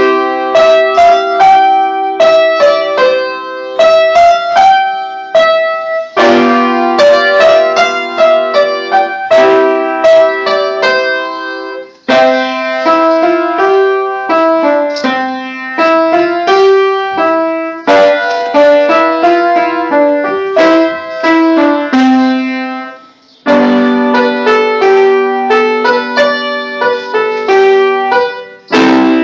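Piano-voiced keyboard playing a folk tune: held low notes under a melody, in phrases that pause briefly about twelve and twenty-three seconds in.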